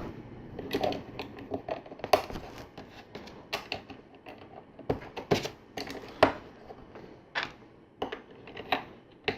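LEGO bricks and tiles being handled and pressed together: irregular sharp plastic clicks and taps, about one or two a second.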